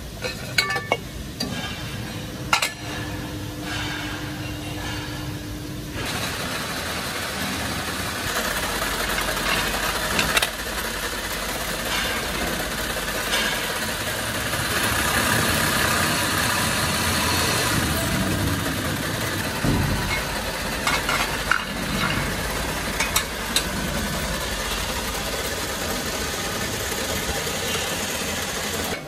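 A lathe turning a cast aluminium ceiling-fan motor cover, with sharp metal clinks and a steady hum, then from about six seconds in the denser, louder, continuous noise of a drill press boring holes through the aluminium cover, with occasional clicks.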